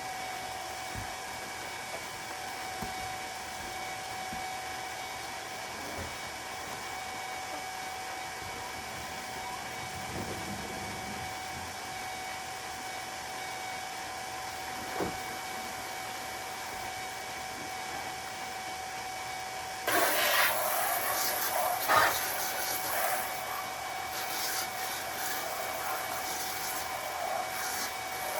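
Water running from a hose, a steady hiss with a faint whine; about two-thirds of the way through it turns to a louder, splashing rush as the water pours into a pan.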